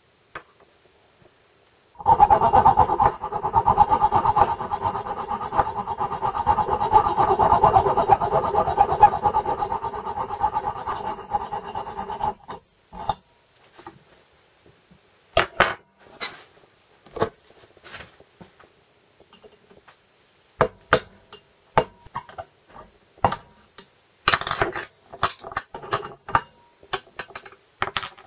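A hacksaw blade rasping steadily through the old sintered bush inside a Land Rover Series 3 transfer box's front output shaft, cutting the bush so it can be removed. It starts about two seconds in and stops after about ten seconds, followed by a string of sharp metallic taps and clicks.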